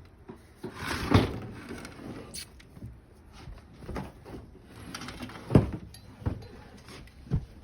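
A three-wheeled ATC being bumped down steps: irregular heavy thumps and knocks with scraping between, the loudest a little past halfway and another near the end.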